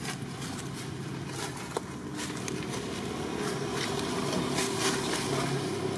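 A motor engine running steadily, slowly growing a little louder, with scattered small crackles and clicks over it.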